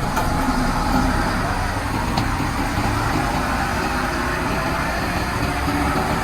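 Heavy diesel construction vehicles, dump trucks and a bulldozer, running steadily with a continuous low engine rumble.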